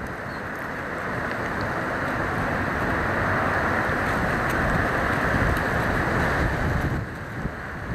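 Road traffic noise: the hiss and rumble of passing vehicles swells over a few seconds and drops away near the end, with wind on the microphone.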